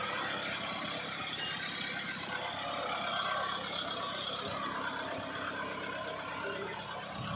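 Kubota MU5501 tractor's four-cylinder diesel engine idling steadily.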